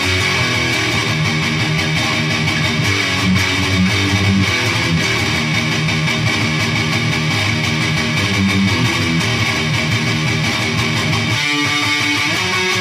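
Electric guitar played through a Peavey Triple XXX II valve amp head on its high-gain channel: distorted metal riffing, with brief stops about a second before the end.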